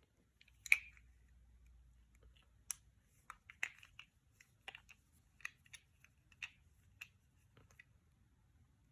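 Small pins and springs from a gutted lock cylinder clicking and clinking as they are handled and set down: a dozen or so sharp, irregular ticks, the loudest about three-quarters of a second in.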